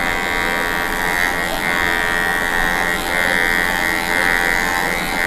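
Electric hair trimmer fitted with a No. 2 clipper guard, buzzing steadily as it cuts the hair short at the back of the head. The buzz grows louder and softer in stretches of a second or so.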